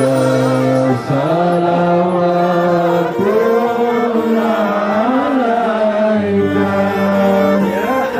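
Background music: a slow melody of long, wavering held notes over steady low notes, the low note dropping about six seconds in.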